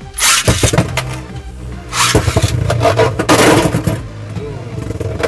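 Beyblades Ace Dragon and Volcano Helios launched into a plastic stadium, then spinning, clashing and scraping against each other and the walls in a run of sharp hits. Background music plays underneath.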